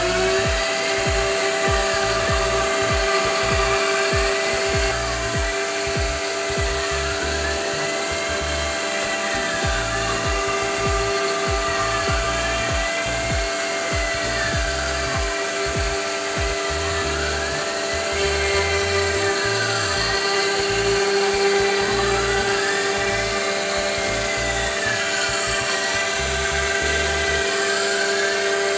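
CNC router cutting a circle through a board: the spindle holds a steady high whine, having just spun up. Over it a second whine rises and falls in pitch once per lap of the circle, about every second and a half, as the machine traces it.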